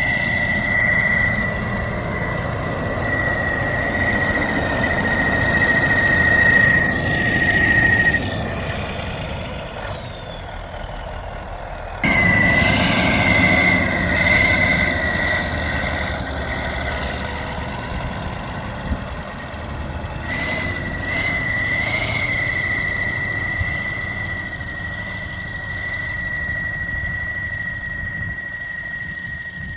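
Kirovets K-700/K-701 tractor running, with a high steady whistle over the engine rumble. The whistle cuts out about eight seconds in, comes back wavering some four seconds later, and settles into a steady whistle again for the last third.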